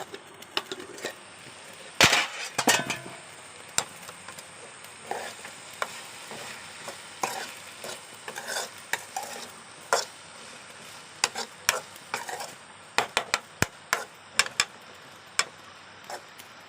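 Stirring and handling at the stove: a spoon clinking and scraping against a cooking pot in irregular sharp knocks, one louder knock about 2 s in, over a steady hiss of food cooking in the pot.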